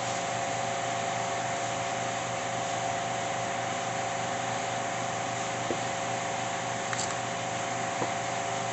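A steady motor-driven whir with a constant hum, unchanging throughout, and a few faint light clicks over the last few seconds.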